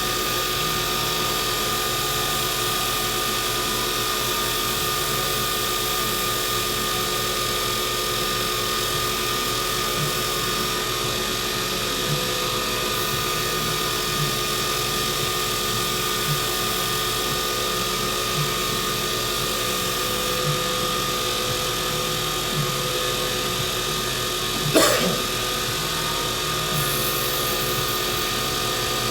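Small wood lathe running steadily with a pen blank spinning on the mandrel, a steady motor whine with a faint tick about every two seconds. A brief knock sounds about 25 seconds in.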